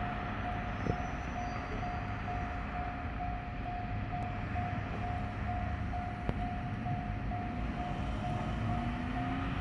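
Japanese level-crossing warning bell ringing, a repeated electronic ding about twice a second, over the low rumble of a train. Near the end a rising whine from a train's motors joins in.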